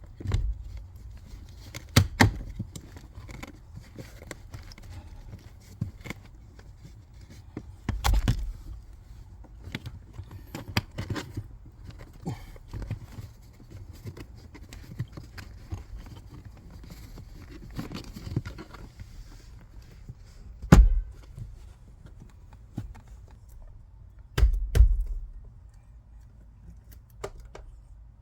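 Plastic interior car trim being handled and pushed back into place: scattered clicks and rattles, with a few louder thumps as pieces are pressed home, the loudest about 21 and 25 seconds in.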